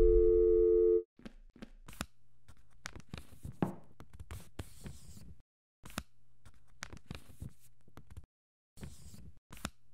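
A steady two-note electronic tone, the end of a logo sting, held for about a second and then cut off sharply. After it comes a faint, scattered series of short clicks and light rustles over a low hum.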